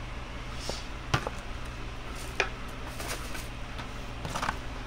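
Light handling of a blister-carded toy car: a couple of sharp plastic clicks and a few faint crinkles, over a low steady hum.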